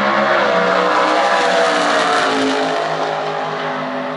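Two Quick 16 doorslammer drag cars at full throttle side by side during a pass, engines running hard with several overlapping pitches. The sound grows a little fainter in the last second as they pull away downtrack.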